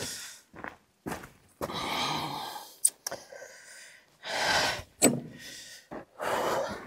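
Three loud, breathy gasps or exhalations, each lasting under a second, with a couple of sharp knocks between them.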